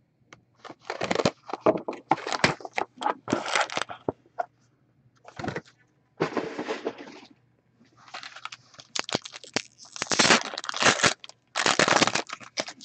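Plastic wrap and hockey-card pack wrappers being ripped open and crinkled, in several bouts of crackling rustle with short pauses between them.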